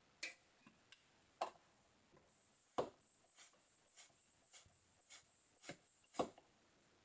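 Faint, irregular clicks and light knocks, about a dozen spread over several seconds, with a faint thin high whine from about two seconds in.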